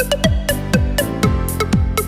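Electronic dance music with a steady four-on-the-floor kick drum, about two beats a second, and crisp percussion on top.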